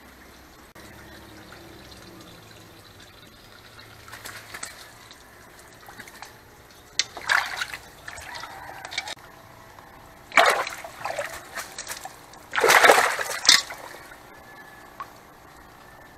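Koi thrashing and splashing in a shallow basin of water as they are scooped with a landing net, in a few loud splashes, the last and longest about thirteen seconds in, with smaller sloshes and trickling between.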